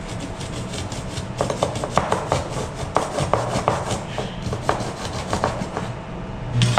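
A large knife blade worked in quick repeated scraping strokes, with sharp clicks among them.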